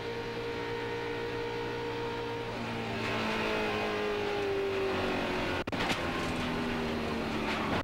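In-car audio of a NASCAR Cup Ford stock car's V8 engine running at racing speed, its note steady at first and then falling from about three seconds in as the car slows into the crash ahead. A short click comes about five and a half seconds in.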